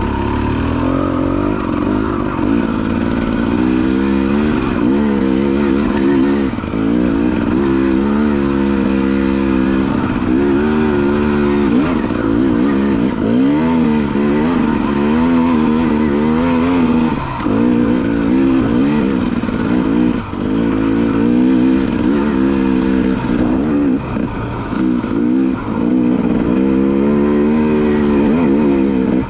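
Dirt bike engine being ridden, its pitch rising and falling over and over with the throttle.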